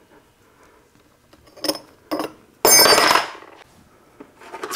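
Steel gearbox parts handled on a metal workbench: two light clinks, then a louder metallic clang that rings on for most of a second, and a few small clicks near the end.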